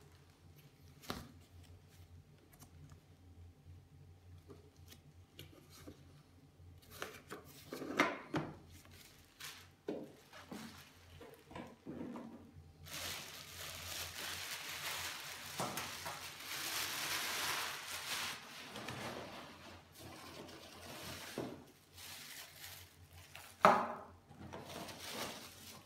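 Plastic wrapping rustling and crinkling as it is handled and pulled off a pasta maker, with a long stretch of loud rustling in the middle. Scattered knocks and clicks run through it, and a sharp knock comes near the end.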